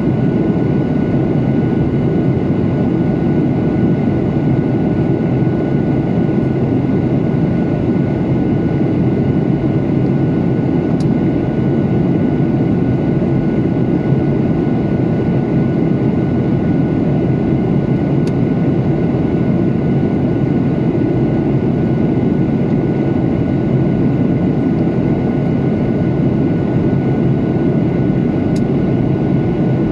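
Jet airliner cabin noise heard from a window seat over the wing in flight: a loud, steady rumble of the engines and rushing air, with a faint steady whine from the engine on top.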